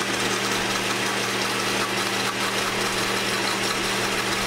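Countertop blender motor running steadily at speed, blending a purée of berries, shallots and reduced red wine while oil is drizzled in to emulsify it.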